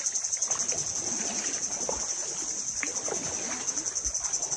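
People wading through shallow water, their legs sloshing and splashing irregularly, under a steady high-pitched drone of insects.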